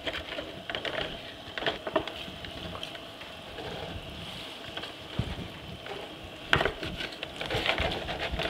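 A flat wooden spatula scraping the bottom of a heavy roasting pan, deglazing the browned turkey drippings with added liquid. Scattered scrapes and clicks sound over a steady hiss, with a few louder strokes near the end.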